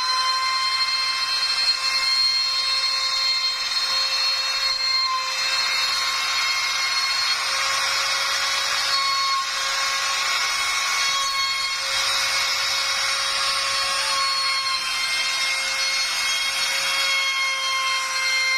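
CNC router spindle cutting 4 mm plywood: a steady high whine with a hiss of cutting over it, the cutting noise growing stronger for a while in the middle.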